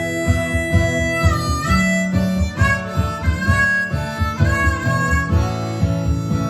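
Harmonica playing held melody notes over an acoustic guitar strummed in a steady rhythm, an instrumental break in a folk song.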